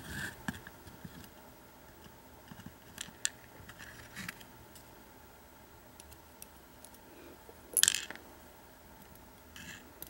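Faint metallic clicks and ticks of steel tweezers working the driver pins and springs out of the pin chambers of an American 1100 padlock's brass body. One louder, brief metallic clatter comes just before eight seconds in.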